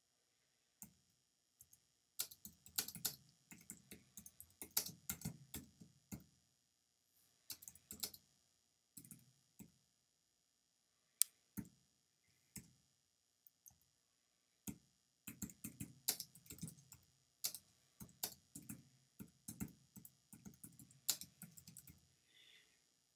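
Typing on a computer keyboard: bursts of key clicks with short pauses between them, and a few lone sharper clicks.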